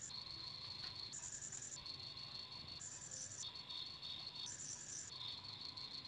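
Insects trilling, high-pitched. Two calls take turns, each lasting about a second, and switch back and forth several times.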